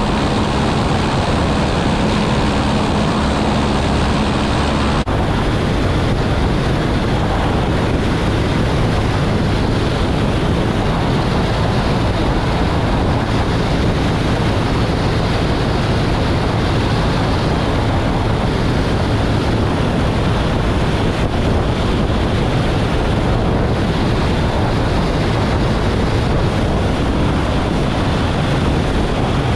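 Walter Minor 4-III four-cylinder inverted inline engine of a Bücker Jungmann biplane running steadily in flight, mixed with heavy wind noise over a wing-mounted microphone. The engine note shifts abruptly about five seconds in.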